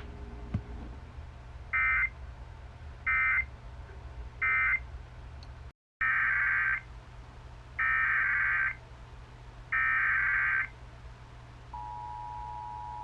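Emergency Alert System data tones: three short warbling bursts of the End-of-Message code closing one alert, then after a brief dropout three longer header bursts opening the next alert. Near the end the steady two-tone EAS attention signal begins.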